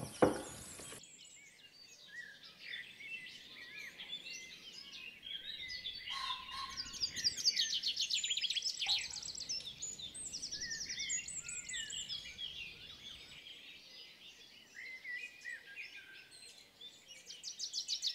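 Songbirds chirping and trilling in a dense, overlapping chorus, with rapid trills loudest a third of the way in and again near the end. At the very start, about a second of tap water running into a bowl, cut off sharply.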